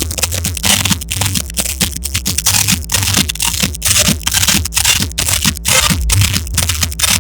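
Loud, harsh electronic music, a dense noisy wash over heavy bass, broken by many sharp percussive hits several times a second.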